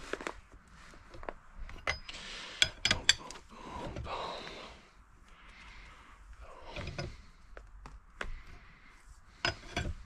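Scattered metal clicks and knocks with some rubbing, as a crank puller is turned by hand with a wrench to draw the crankshaft into an AF05 scooter engine case.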